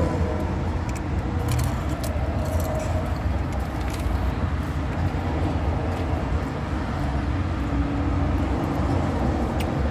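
Steady low drone of a stationary car idling, heard from inside the cabin, with a few short crisp crunches of a potato chip being bitten and chewed.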